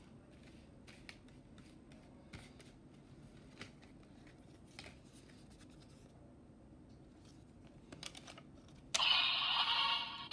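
Light plastic clicks and scratching as the DX Chemy Riser toy and a collectible card are handled, then about nine seconds in the toy's speaker suddenly starts playing a loud electronic sound effect with a tune, much louder than the handling.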